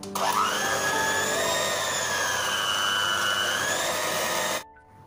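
Electric hand mixer running with its beaters in cake batter: it spins up at the start into a steady high whine, the pitch wavering slightly, then cuts off sharply just before the end. This is the batter being beaten until fluffy.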